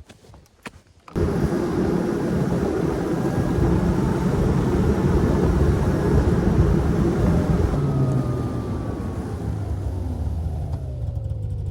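Snowmobile engine running at speed, starting abruptly about a second in, with a steady low drone under a rushing noise. Its pitch falls over the last few seconds as it eases off the throttle.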